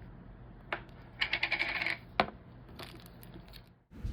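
Crunchy bingsu bead slime being squeezed and pressed, giving scattered sharp clicks and a dense burst of crackling pops about a second in.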